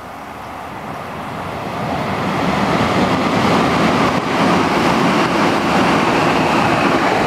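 Keio Line electric train passing at speed. Its wheel and running noise builds over the first two and a half seconds into a loud, steady rush as the cars go by.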